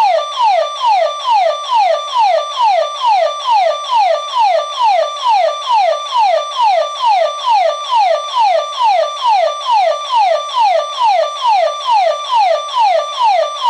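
Burglar alarm siren of a home security system going off: a loud tone that sweeps down in pitch and repeats over and over, a little over two sweeps a second.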